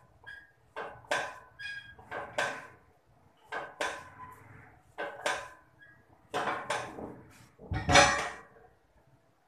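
Metal weight plates clinking and knocking on a loaded curl bar during preacher-curl reps, a short clink every second or so, some ringing briefly. The loudest is a clatter about eight seconds in as the bar is set down on the preacher bench's rack.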